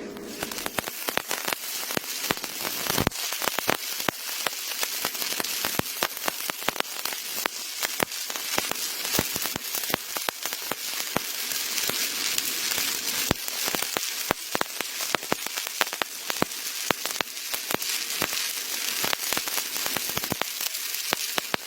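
Electric welding arc crackling and sizzling steadily with many sharp pops, like frying, during a weld pass on pipe. It starts abruptly as the arc is struck and stops abruptly as it is broken.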